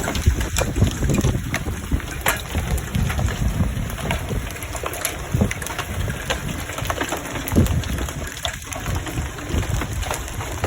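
Hail falling: scattered sharp ticks and knocks of hailstones striking hard surfaces at irregular intervals, over a steady storm wash with wind rumbling on the microphone.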